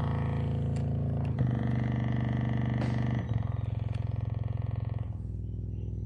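8-inch 2-ohm subwoofer driven by a TDA7294 amplifier, playing loud, deep, sustained bass notes that change pitch about every two seconds, with a few short clicks over them.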